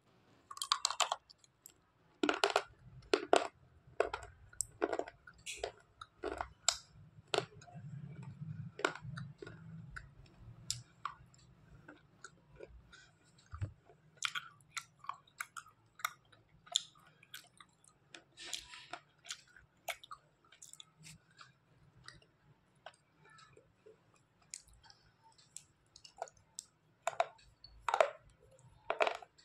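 Slate pencils being bitten and chewed: many sharp, brittle crunches at irregular intervals, loudest in the first few seconds and again near the end.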